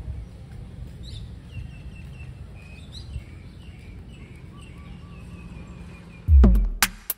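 Outdoor ambience of small birds chirping again and again over a low rumble. About six seconds in, electronic music with a heavy drum-machine beat cuts in loudly.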